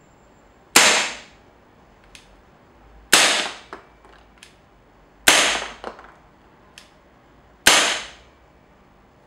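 A green-gas airsoft gun fitted with an A+ Airsoft hop-up rubber fires four single shots about two seconds apart, in a power test. A few faint clicks fall between the shots.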